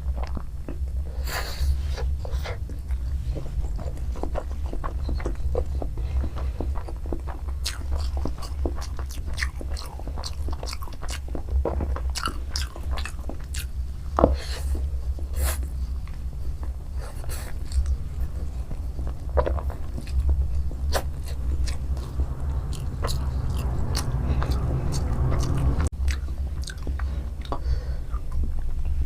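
Close-miked chewing and biting of spicy fried chow mein noodles with egg: many short wet clicks and mouth smacks, over a steady low hum.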